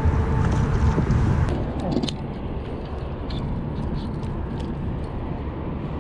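Wind buffeting the microphone in a low, steady rumble, heavier in the first second or so and then easing, with scattered small clicks and scrapes.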